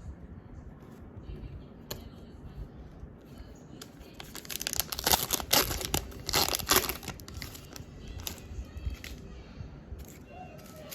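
A Pokémon trading card booster pack's foil wrapper being torn open, with a few seconds of loud crinkling and tearing in the middle amid quieter handling noise.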